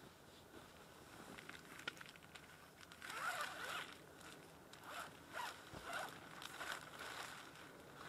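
A zipper being pulled open or shut in a run of short strokes, starting about three seconds in.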